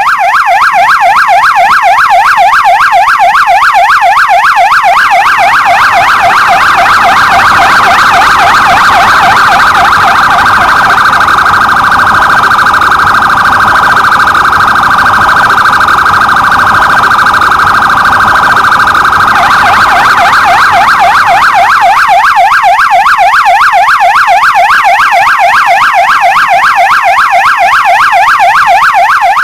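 Electronic police patrol-car siren at close range, cycling in a fast yelp of about four up-and-down sweeps a second. From about six seconds in it changes to a steadier, more even tone, then returns to the fast yelp about nineteen seconds in.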